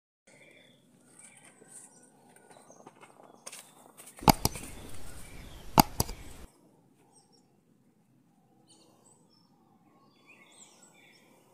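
Quiet yard ambience with faint bird chirps. About four seconds in, someone walks past close to the microphone: two or three sharp knocks and a rush of rustling noise for about two seconds, the loudest sound here.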